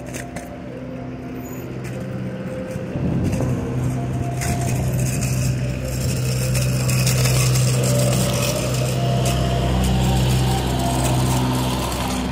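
Ice cream truck's engine running steadily with a low hum, growing louder over the first few seconds and then holding.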